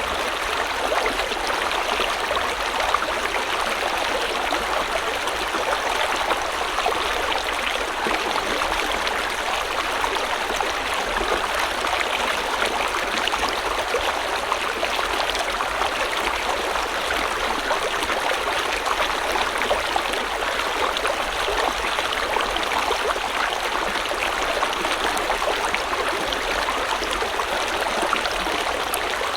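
River water flowing steadily over rocks, a constant rushing babble with fine splashes and gurgles throughout.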